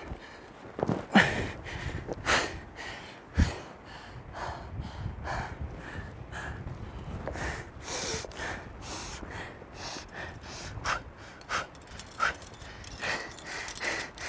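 A rock climber breathing hard with effort on a hard pitch: a run of short, forceful breaths and gasps in quick succession, with a couple of dull low thumps about one and three seconds in.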